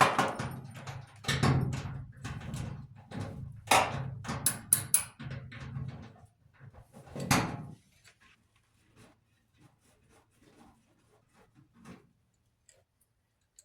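Knocking and clattering of metal parts and tools while a clothes dryer is being taken apart, irregular knocks and clicks over a low hum for about eight seconds, then only a few faint ticks.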